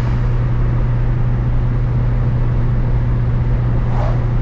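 Turbocharged Honda F20B four-cylinder engine running at a steady cruise, a constant low drone mixed with road noise, heard inside the car's cabin.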